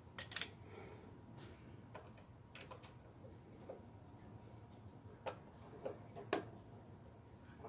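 A hand screwdriver being picked up and turning small screws into the Grass Flap's mounting plate on the mower chute: a handful of sharp, separate clicks and taps of tool and screw on the plate, the loudest near the end.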